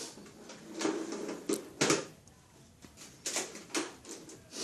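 A string of irregular short knocks and clicks, like hard objects being handled and set down.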